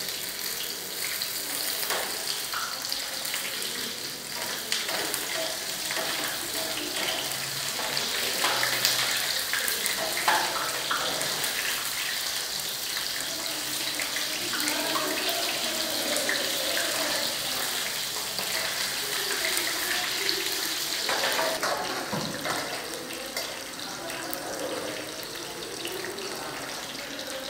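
Pieces of food deep-frying in a pan of hot oil: a steady sizzling hiss, with a metal spatula and tongs now and then knocking against the pan.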